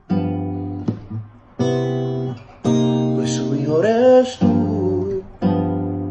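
Acoustic guitar strummed in slow chords, about one a second, each chord ringing on until the next. A voice slides up in pitch briefly near the middle, the loudest moment.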